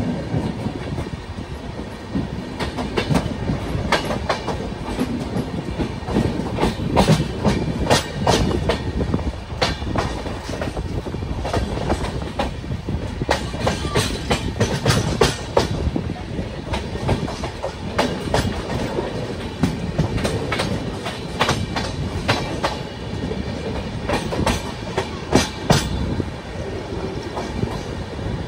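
A train running along the track, its wheels clattering over rail joints in a steady rumble broken by many irregular clicks and knocks.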